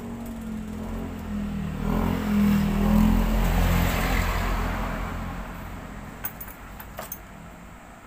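A motor vehicle passing by, its engine sound swelling to a peak about three seconds in and then fading away. A few light clicks come near the end.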